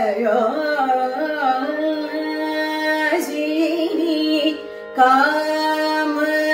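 A woman singing a Carnatic kriti in raga Pantuvarali, her voice sliding through ornamented turns over a steady drone. There is a short breath pause about four and a half seconds in, while the drone carries on.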